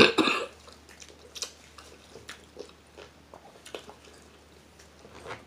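Close-up eating sounds of crab meat: a loud burst of mouth noise right at the start, then scattered wet smacks and small clicks of chewing.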